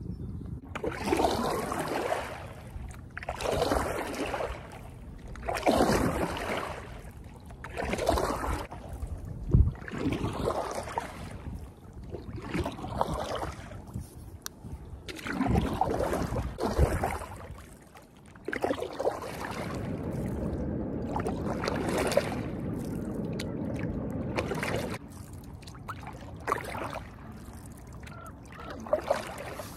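Stand-up paddle board paddle strokes: the blade dipping and pulling through river water in a regular swish about once every two seconds.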